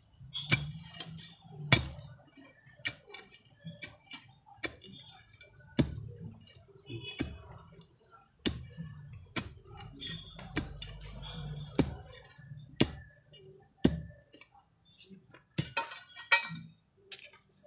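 Metal digging tool striking hard, compacted soil again and again, irregular sharp chinks mixed with duller thuds, about one or two strokes a second.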